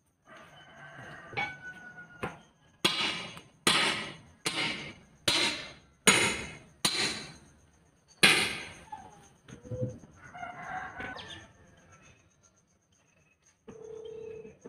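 About seven heavy hammer blows, about one every 0.8 s, struck while taking a ten-wheeler truck tire off its rim by hand: pounding the bead loose.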